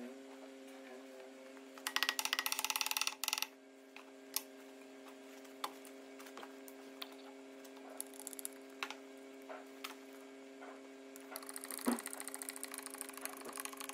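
Metal parts being handled while a bronze bush is set up under a steel plate and bottle jack for pressing: scattered sharp metal clicks and knocks, with a burst of rapid clicking about two seconds in and again near the end, over a steady hum.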